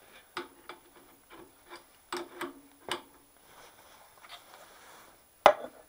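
Handling clatter of a steel spanner on a metal shaper's feed spindle and a plastic kitchen scale being picked up and positioned: a string of separate clicks and knocks, a few with a short metallic ring, the loudest a sharp knock near the end.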